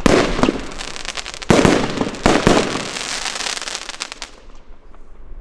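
Klasek C50MO firework shots going off with loud bangs over dense crackling, three main reports in the first two and a half seconds. The crackle then thins out and dies away as the firework burns out.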